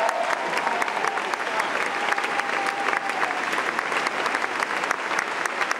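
Large theatre audience applauding: dense, steady clapping.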